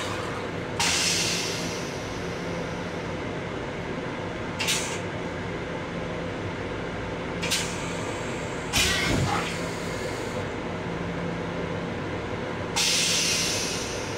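Stainless-steel railcar toilet going through its flush cycle: a series of five hissing rinse sprays into the bowl, each starting suddenly and fading, a few seconds apart. The fourth and loudest comes with a low thump. All of it sits over a steady hum.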